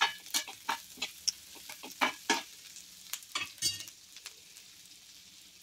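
Sliced onions sizzling in hot oil in a pan while being stirred, the utensil scraping and clicking against the pan in irregular strokes. The onions are frying toward golden for a masala base. The stirring stops about four seconds in, leaving a faint sizzle.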